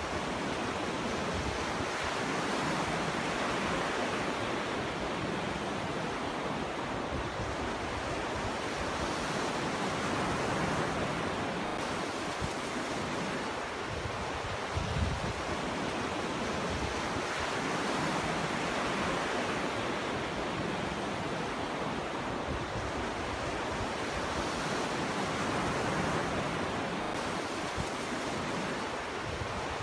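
Ocean surf: waves breaking and washing up a beach in a continuous wash that swells and eases every several seconds, with a brief low thump about halfway through.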